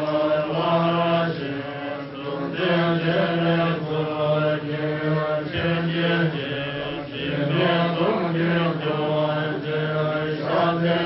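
Tibetan Buddhist long-life prayer chanted in unison by a group of voices, held on a steady low pitch with short breaks for breath every few seconds.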